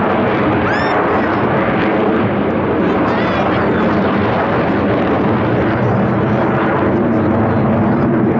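Loud, steady jet engine noise from a pair of Sukhoi Su-35S fighters flying overhead.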